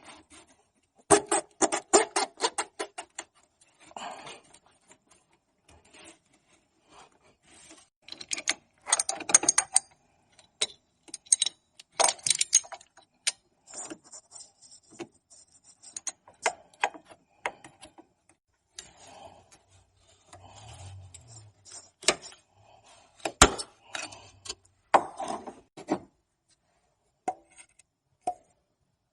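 Hand tools and small engine parts being handled: scattered metallic clicks, clinks and rattles, with a fast run of clicks about a second in and a single sharp knock near the end.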